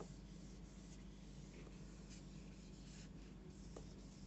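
Faint rubbing of a handheld eraser wiping marker off a whiteboard, over a steady low hum.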